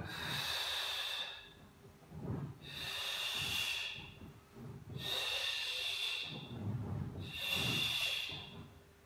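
A person's effortful breathing while holding a plank on an exercise ball: four long, hissing breaths about two and a half seconds apart.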